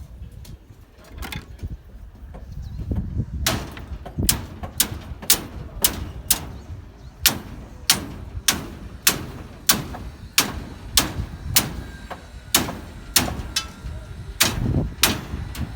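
A steady run of sharp knocks, about two a second, starting a few seconds in: hammer blows.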